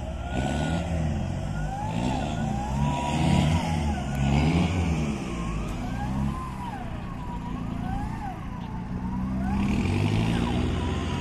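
Off-road 4x4's engine revving up and down over and over as it works along the trail, with a whine rising and falling in step with the revs.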